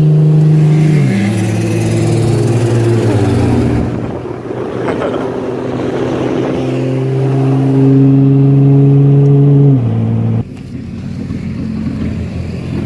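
Car engine under hard acceleration: its pitch drops at a gear change about a second in and climbs again, then it pulls hard through a long climb in pitch before dropping away sharply about ten seconds in as the throttle is released.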